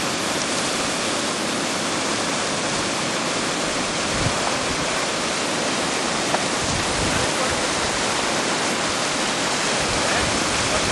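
River water rushing steadily over stones, a constant loud rush, with a couple of brief low thumps partway through.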